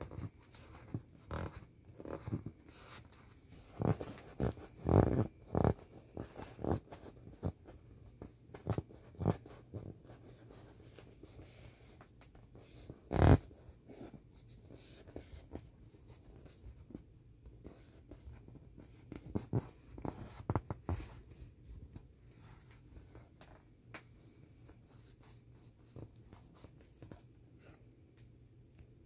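A hand rubbing, pressing and patting the inflated vinyl skin of a 1996 Intex elephant sprinkler toy: irregular rubbing and crinkling of the plastic, with one loud squeeze or slap about thirteen seconds in and quieter spells in between.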